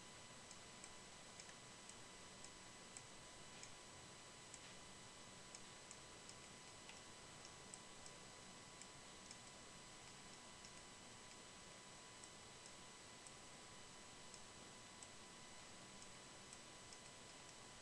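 Near silence with faint, scattered clicks of a computer mouse being clicked and scrolled, over a faint steady high whine.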